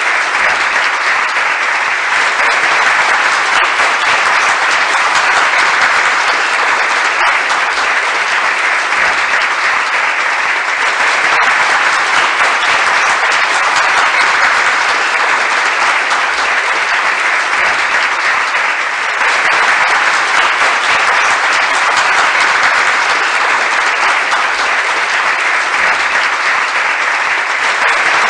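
Crowd applause, dense and sustained clapping at an even level throughout.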